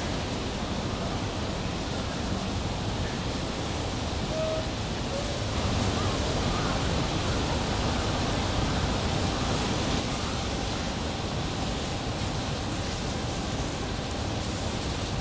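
Steady rushing background noise with a few faint, short high calls about four to seven seconds in.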